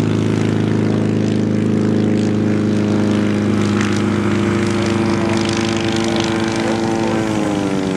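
Belite UltraCub ultralight's engine and propeller running at full power through the takeoff run and climb-out, a steady buzzing drone whose pitch drops near the end as the plane passes.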